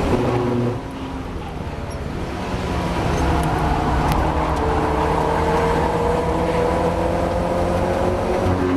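Mazda MX-5 race car's four-cylinder engine accelerating hard, its pitch climbing steadily for several seconds after a brief dip about a second in, then dropping for a gear change near the end.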